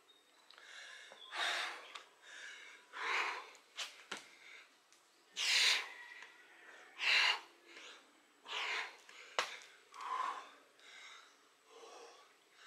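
A man breathing hard from exertion, with a forceful exhale or gasp about every second and a half. A few sharp thuds come in between the breaths.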